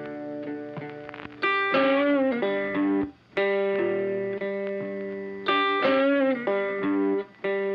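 Background music led by a guitar playing long held notes, with a note bending down about two seconds in and again about six seconds in.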